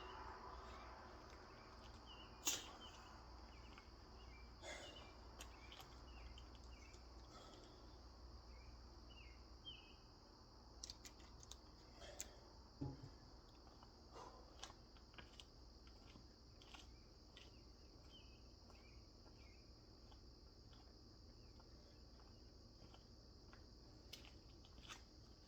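Near silence: a steady high-pitched hum with a few faint clicks and knocks, the clearest about two and a half seconds in and again near the middle.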